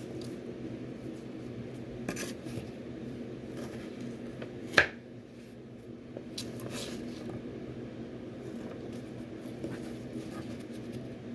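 Vegetables being cut with a knife on a cutting board: a few faint scrapes and one sharp knock of the blade on the board about five seconds in, over a steady low hum.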